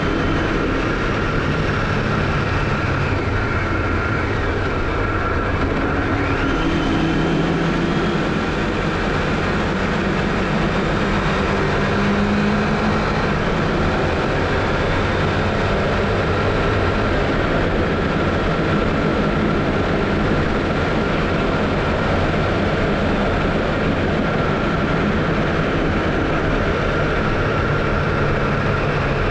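Honda CBF500 motorcycle's 499 cc parallel-twin engine running steadily, its pitch shifting a little now and then.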